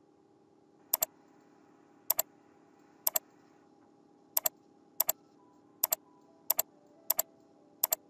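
Computer mouse button clicking nine times at an uneven pace of about one per second. Each click is a quick double snap of press and release, over a faint steady hum.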